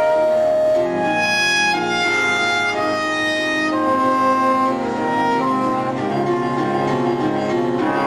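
Live avant-garde instrumental ensemble music, with a keyboard synthesizer among the instruments: high held notes step to a new pitch about once a second over a busier lower part.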